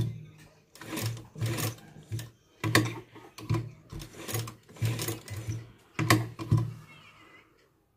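Black domestic sewing machine stitching lace trim onto a fabric collar in a series of short stop-start runs, each under a second long.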